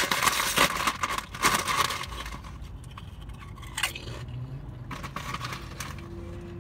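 Crinkling and rustling of a Lay's potato chip bag being handled, loudest and densest in the first two seconds. After that comes quieter, sparser crunching of chips being eaten, with one sharper crackle a little before four seconds in.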